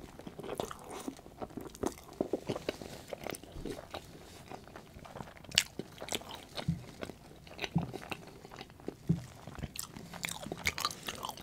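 Close-miked chewing of a spoonful of Montreal smoked meat poutine, with many wet mouth clicks and smacks. A few soft low thuds come in the second half.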